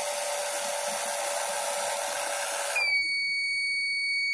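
The model train's small electric drive motor runs with a steady whir and whine, then cuts off suddenly about two-thirds of the way in. The board's buzzer then sounds one steady high beep that lasts to the end.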